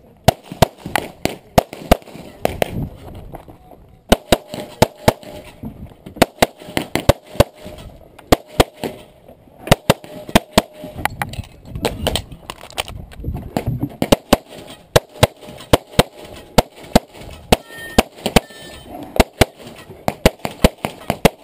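Handgun fired rapidly at close range in quick strings of shots, dozens in all, with brief pauses between strings.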